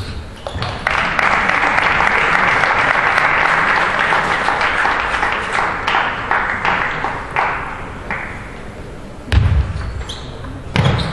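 Audience applauding for about six seconds after a table tennis point, then dying away. Near the end come sharp clicks and knocks of a table tennis ball off bat and table as the next rally begins.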